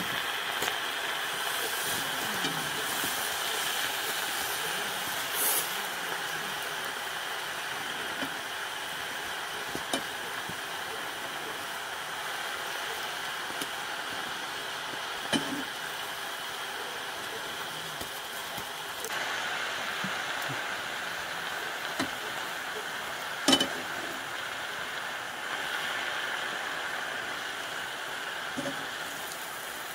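Leafy greens sizzling steadily in a wok over a wood fire while being stirred with a wooden spatula, with a few sharp knocks from the spatula against the pan.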